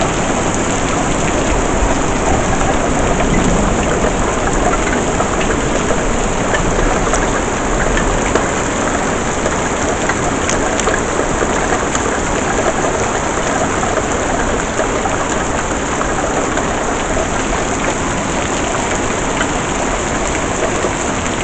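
Heavy rain falling hard and steady.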